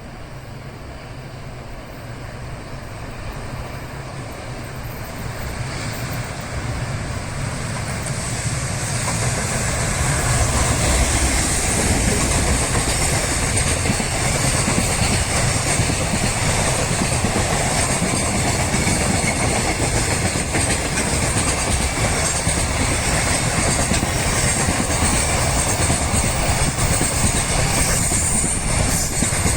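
Train approaching and passing: the rumble builds over about the first ten seconds, then the wheels' steady rumble and clatter over the rails hold loud to the end.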